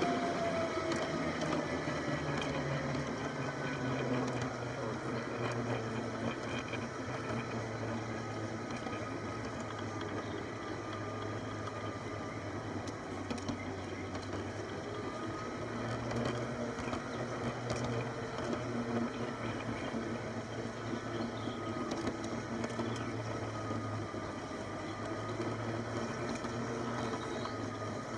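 Garden-scale model streetcar's small electric motor and gearing running steadily, with a faint whine that drifts slightly in pitch and the wheels rolling on the track, heard from on board the car.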